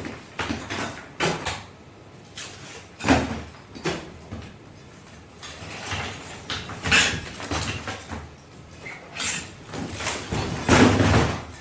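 Lath and plaster being pried off a wall: irregular cracking knocks and scraping clatters of wooden lath strips and falling plaster, heaviest near the end.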